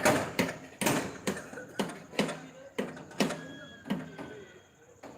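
Repeated hammer blows on centring formwork, about two strikes a second and growing fainter toward the end, some with a short metallic ring after the hit.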